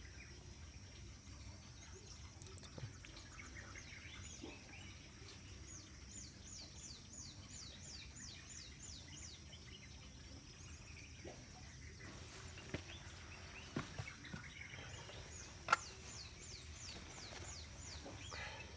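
Faint outdoor ambience: a steady high insect drone, with a bird calling two quick runs of short falling notes, about three a second. A few soft clicks come in the second half.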